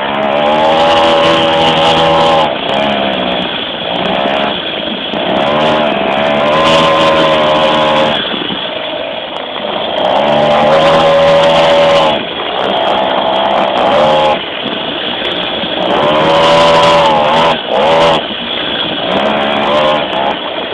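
Blata mini moto's small two-stroke engine heard up close from the tank, revving hard and easing off again and again as the bike is ridden: about five bursts of throttle, each pitch rising, holding, then dropping back.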